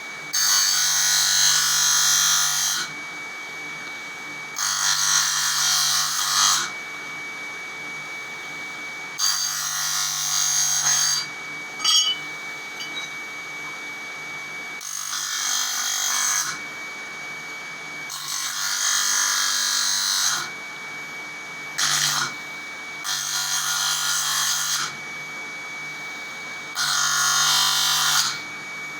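Homemade bench grinder's electric motor running steadily with a constant hum and whine. About seven times, each for a second or two, a workpiece is pressed to the wheel and a loud, rough, hissing grind rises over it, with a couple of brief touches in between.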